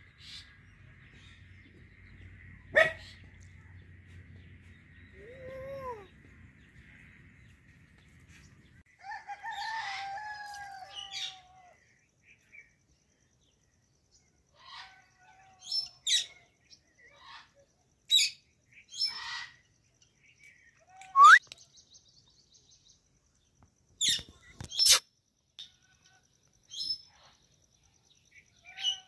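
Indian ringneck parrot calling: a run of short, sharp squawks and screeches, the loudest a rising screech about two-thirds of the way through. Before that there is a longer, wavering call, over a faint steady hum that stops abruptly about a third of the way in.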